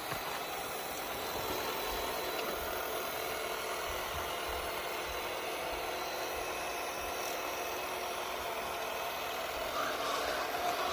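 YEEDI Cube robot vacuum running with a steady motor whir and hiss.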